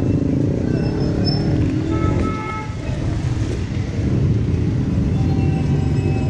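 Busy city street noise: road traffic running steadily past, with the hubbub of a crowded sidewalk.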